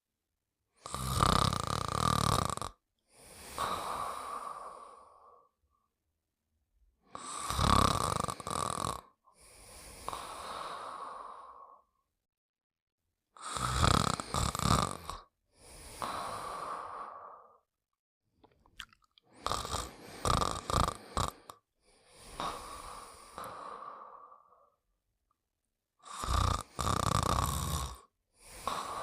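Pink Panther snoring: a loud rattling snore on the in-breath, then a softer, longer out-breath, with a steady whistle-like tone running through both. The cycle repeats about every six seconds, five times, and the fourth snore comes in several short catches.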